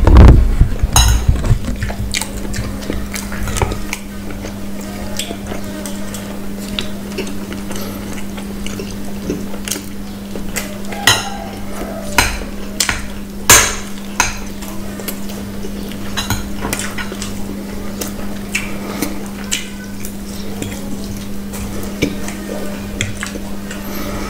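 Metal spoon and fork clinking and scraping against plates as food is scooped up and eaten, in scattered clicks with a few louder clinks past the middle. A loud low thump comes right at the start, and a steady low hum runs underneath.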